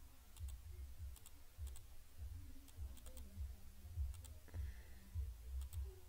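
Computer mouse clicking: several faint, sharp clicks at irregular intervals, some in quick pairs, over an irregular low rumble.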